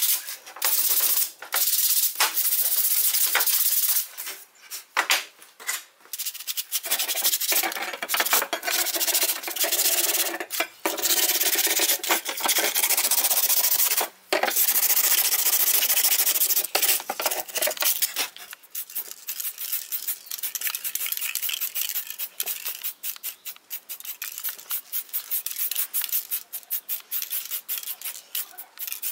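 Hand sanding: sandpaper rubbed over wood and metal, a dry scratching hiss. It comes in long stretches that break off abruptly several times and turns choppier in the second half.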